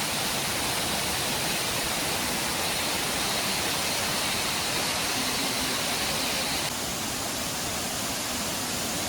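Steady rushing roar of a waterfall, full with monsoon water, even and unbroken, dipping slightly in level about two-thirds of the way through.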